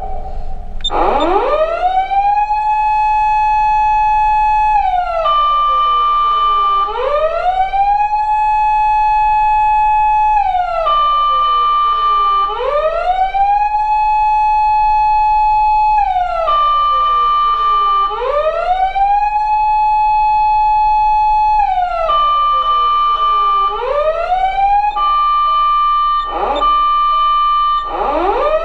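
PATLITE SAP-500FBZ electronic siren amplifier sounding a Japanese fire-engine wail. A tone rises, holds for a couple of seconds, then falls, repeating about every five and a half seconds, with a steady higher tone sounding during each fall. A few quick sweeps come near the end.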